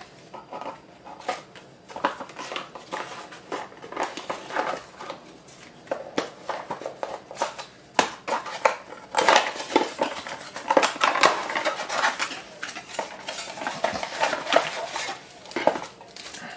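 Hands unpacking a small cardboard box: rustling paper inserts and cardboard, with many small clicks and taps of plastic parts, busiest a little past the middle.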